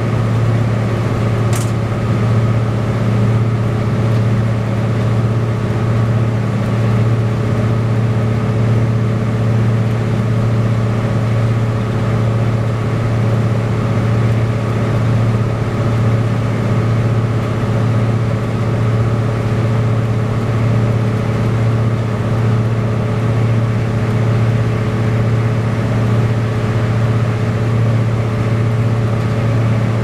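Inside a 2009 New Flyer D40LFR transit bus cruising at a steady speed: the Cummins ISL straight-six diesel and its exhaust give a loud, bassy, steady drone, with no change in pitch.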